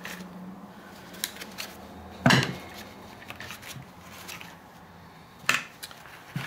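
Metal tools being handled and set down on a workbench: a few light clicks, then a sharp metallic clank about two seconds in and another about five and a half seconds in, as the snap ring pliers and the removed retaining clip are put aside.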